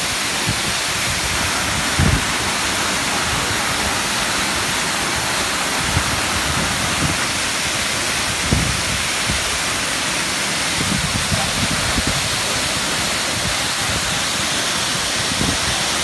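Waterfall in several streams pouring down a rock face onto boulders, a steady, loud rush of water noise, with a few brief low bumps.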